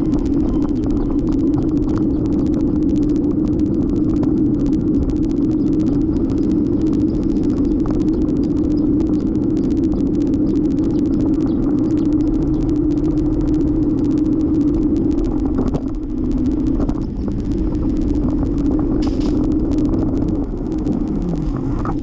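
Steady rolling rumble of a folding bicycle riding on pavement, picked up by a camera mounted on the bike, with many small rattling ticks. Near the end the hum slides down in pitch as the bike slows.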